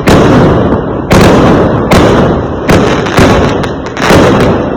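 Fireworks going off in quick succession: about six loud bangs, roughly one a second, each followed by a rumbling tail that fades before the next.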